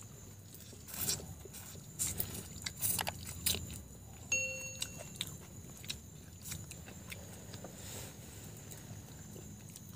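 Close-up crunching and crackling of grilled shrimp being peeled and bitten, in irregular sharp clicks. A short chime rings out a little after four seconds in.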